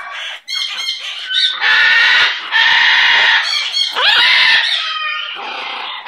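Blue-and-gold macaw giving three long, harsh squawks, the third starting with an upward slide in pitch. Before them come a few quick, sharp clicks.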